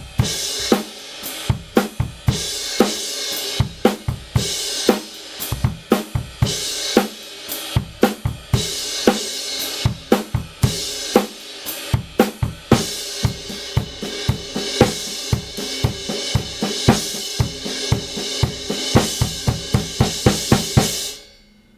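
Drum kit played in a steady groove of kick, snare and hi-hat, with a Kingdo Artist Dark 17-inch crash cymbal struck again and again, its wash ringing over the beat. The playing stops near the end.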